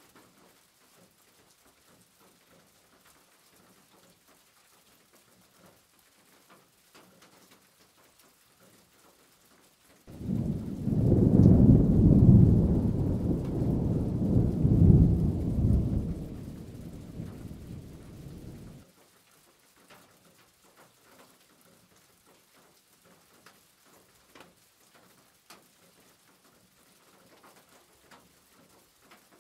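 A loud, low rumbling noise starts abruptly about ten seconds in and cuts off suddenly about nine seconds later, over faint background ticks.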